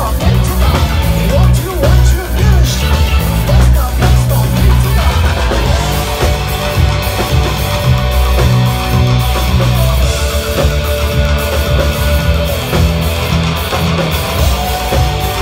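Rock band playing with electric guitar, bass and drums, without vocals. About six seconds in, long held guitar notes enter over the beat and step to new pitches twice.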